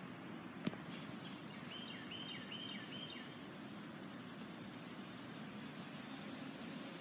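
Steady outdoor background noise with a quick run of about five bird chirps from about one and a half to three seconds in, and a single sharp click just under a second in.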